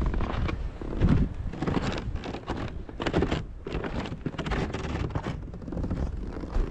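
Footsteps crunching in snow at a steady walking pace, about two a second, as someone climbs snow-covered wooden steps, with wind rumbling on the microphone.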